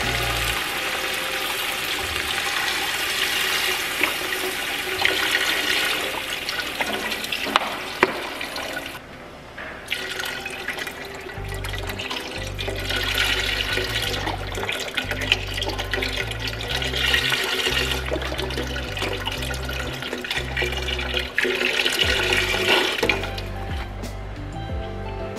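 Chicken broth pouring from a carton into a soup pot, a steady splashing pour with a short break about nine seconds in. Background music plays underneath.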